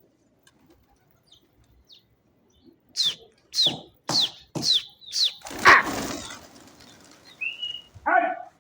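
Pigeons' wings flapping: after a quiet start, five sharp claps about half a second apart, then a longer flurry of wingbeats.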